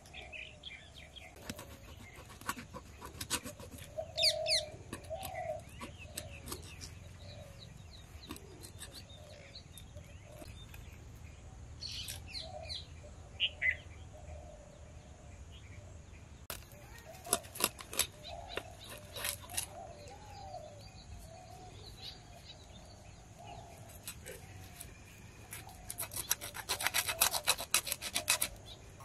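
Knife scraping the scales off a fish: a fast run of rasping strokes near the end, after scattered clicks and short scrapes. Birds chirp now and then.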